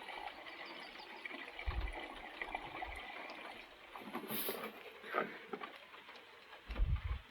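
Antifreeze trickling from a jug into a car radiator, with a couple of brief low bumps.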